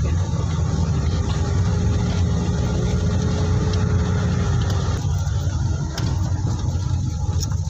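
Car engine and road noise from inside the cabin while driving slowly over a rough, potholed gravel road: a steady low rumble, with a few light knocks near the end.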